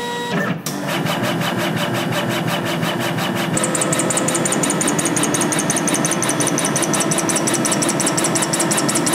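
Gravograph LS100 CO2 laser engraver marking a glass champagne bottle: the laser head's carriage shuttles back and forth in a rapid, even rhythm of about seven strokes a second. A high pulsing whine joins about three and a half seconds in.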